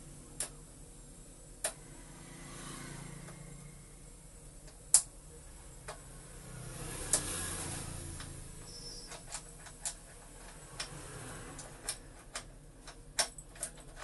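Scattered sharp metal clicks and taps from hand tools working at a Vespa's steering lock. The loudest click comes about five seconds in, and a quick run of clicks follows near the end.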